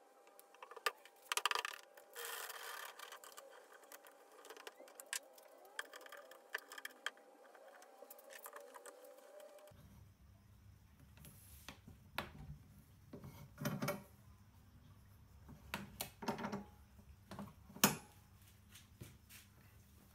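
Light hand-work sounds of hardwood boards and clamp hardware: scattered sharp clicks and knocks with some rubbing as a splined end piece is glued onto a mitred tabletop and a pipe clamp is tightened across it. Rag wiping sounds come near the end.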